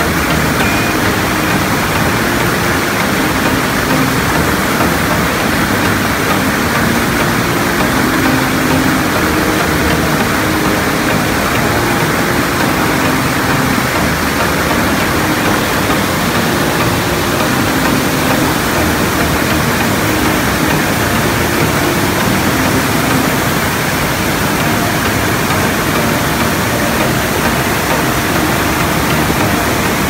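Stream water rushing over boulders and through a rocky chute, a loud, steady rush of white water.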